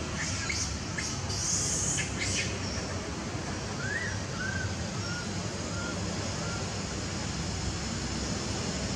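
Birds calling over a steady background hiss: high chirps in the first couple of seconds, then a run of five short falling notes about four seconds in, each fainter than the last.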